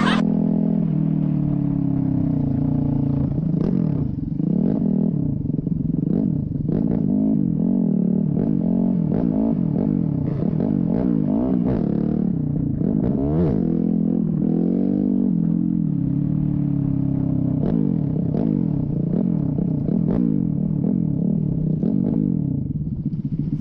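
Dirt bike engine heard from the rider's own seat, its pitch rising and falling over and over as the throttle is opened and eased off while riding, over a low rumble of wind noise.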